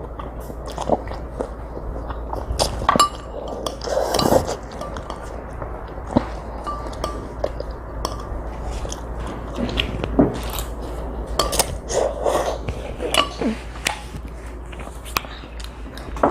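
Utensils clinking and tapping against a bowl during a meal of spicy jjolmyeon noodles, many separate clicks with a few longer scraping or mouth sounds between them.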